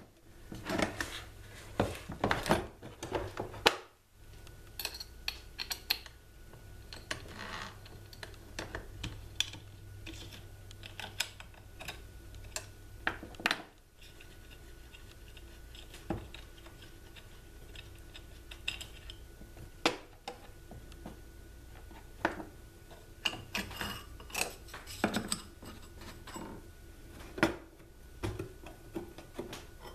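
Scattered clicks, knocks and light metallic rattles of a Rotorazer Saw Platinum compact circular saw having its blade changed by hand: the tile blade is taken off and another blade fitted, with metal parts and the plastic carrying case handled. A faint steady hum lies under it.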